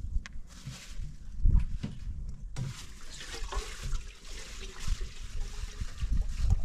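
Water pouring from a plastic jerrycan into a kettle, starting about two and a half seconds in and running steadily, over dull low thumps.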